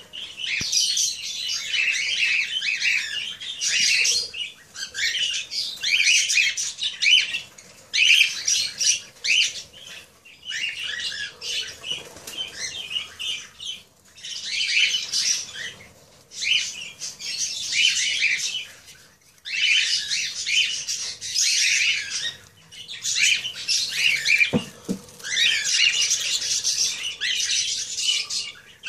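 Aviary birds calling in repeated bursts of high, dense chatter, each lasting a second or two with short gaps between. There is one sharp knock near the end.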